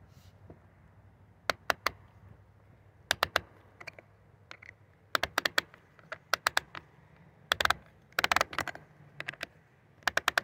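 Sharp clicks in irregular bunches of two to five from a DeWalt 60V chainsaw's chain tensioner as it is turned with a tool. The tensioner's small gear is jumping over its broken and ground-down teeth instead of tightening the chain.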